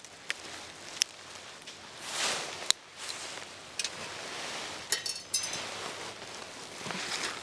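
Scattered sharp clicks and crackles, with a short ringing metallic clink about five seconds in and soft rustling in between, from a small wood fire in a camp stove and metal cookware being handled.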